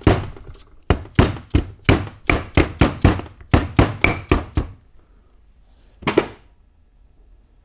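A small hammer tapping the top half of a Dana 44 Powr-Lok differential case down onto the lower half, to seat it over the clutch packs and cross shafts: a quick, even run of light metallic taps, about four a second, that stops about four and a half seconds in. One more single knock follows as the hammer is set down on the bench.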